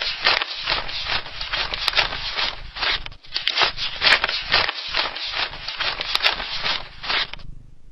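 A rapid, irregular run of scraping, crackling noises, several a second, that stops near the end.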